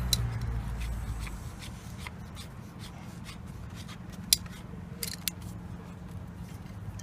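Small parts being handled: light rubbing and scattered clicks, one sharper click about four seconds in. A low hum fades out over the first second or so.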